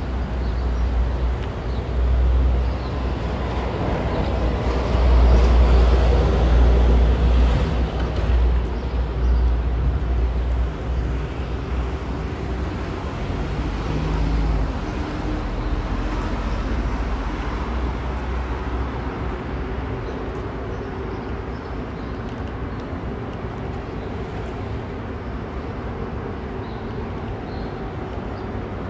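City street traffic noise: passing vehicles with a deep rumble that swells about four seconds in and eases off after about eight seconds.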